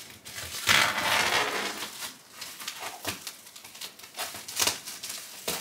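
Clear plastic stretch wrap on a new chair being cut with scissors and pulled off, crinkling and tearing. The loudest stretch is a long burst about a second in, followed by shorter, irregular crackles.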